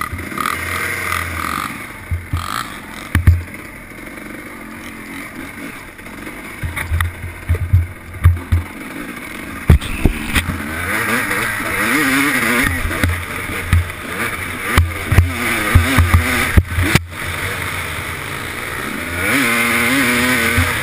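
Dirt bike engine revving up and down as the rider works the throttle, its pitch repeatedly rising and falling, with frequent irregular low thumps of wind buffeting and jolts on the helmet-mounted microphone.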